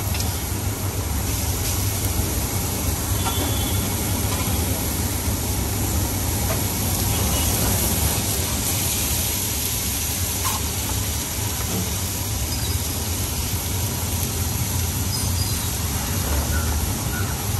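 A large heap of chopped onions frying on a wide flat griddle: a steady sizzle over a constant low rumble.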